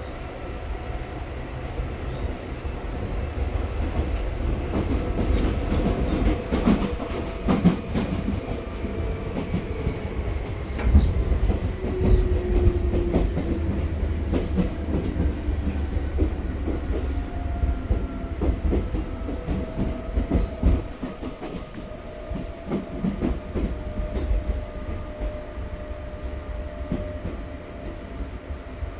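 Seibu 2000 series electric train running: wheels clacking over rail joints under a steady low rumble, with a motor and gear whine that falls slowly in pitch. It grows louder over the first dozen seconds and quieter near the end.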